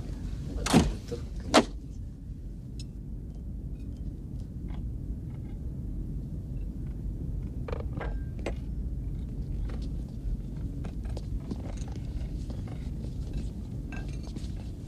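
A door swings shut with a heavy clunk, and a sharp latch click follows less than a second later. A steady low rumble of a submarine's interior carries on underneath, with scattered small clinks and taps.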